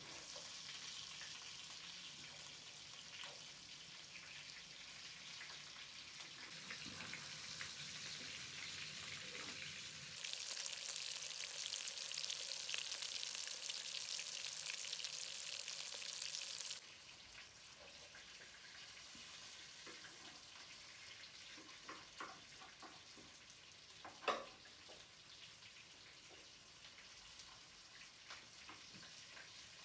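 Meatballs frying in shallow oil in a pan: a steady sizzle, loudest for several seconds in the middle and then quieter. Near the end come a few light knocks of a metal spoon against the pan, one of them sharp.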